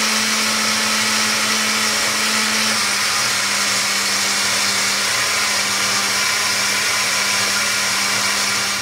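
Countertop blender with a glass jar running steadily, blending a creamy coconut-milk and rum mixture. Its motor hum drops slightly in pitch about three seconds in, and the blender is switched off at the very end.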